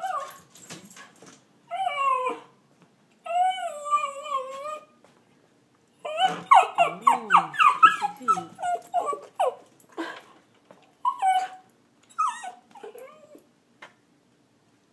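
Schneagle (schnauzer–beagle mix) whining in long, wavering whines, then a rapid run of high yelps and whines from about six to ten seconds in, tapering to a few short whines. It is excited, agitated whining at a cat seen outside.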